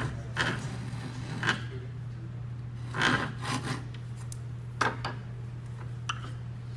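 A hand tool scraping across wood in about five separate strokes, the longest and loudest about three seconds in, over a steady low hum.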